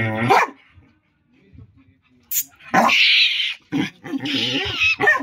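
Belgian Malinois dogs growling as they play together. After a short lull, rough growls come in bursts from about two and a half seconds in and continue near the end.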